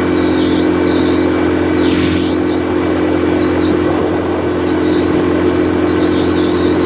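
Yamaha 9.9 hp four-stroke outboard motor running at a steady, unchanging speed with the boat under way, over a steady rush of water and wind.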